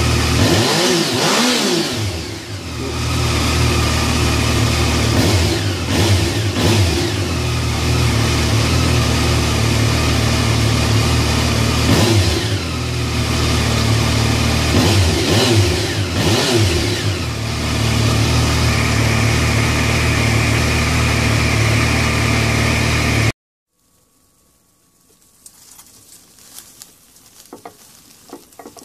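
Yamaha FJ-09's inline three-cylinder engine idling in neutral, revved by hand with the throttle several times, the pitch rising and falling back each time. The engine sound cuts off suddenly near the end, leaving faint tapping.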